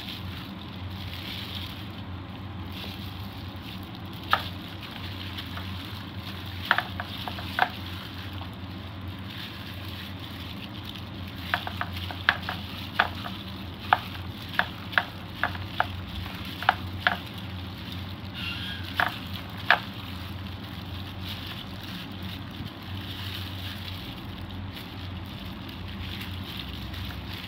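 Kitchen sounds: a steady frying-like hiss with scattered sharp clicks of a utensil, the clicks coming thickest in a run of about a dozen about halfway through.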